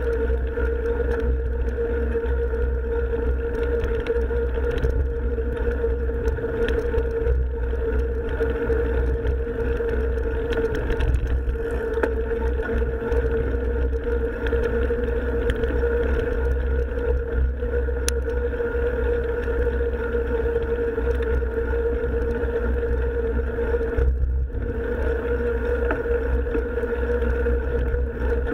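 Mountain bike ridden on a forest trail, heard from a camera on the bike or rider: a steady running hum over a low rumble, with frequent small clicks and rattles.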